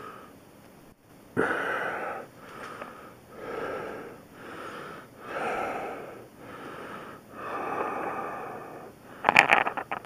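A sick man's heavy breathing close to the microphone, loud in-and-out breaths about once a second, then a short clatter of sharp knocks near the end.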